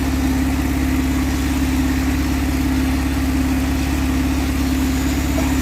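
Engine-driven machinery running steadily at constant speed, an even drone that does not change in pitch.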